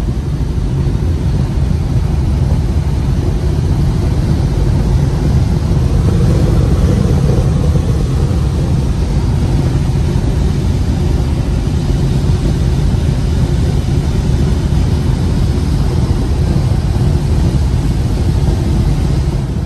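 Semi-truck's diesel engine running steadily under a wash of road and wind noise, heard from inside the cab while cruising at highway speed.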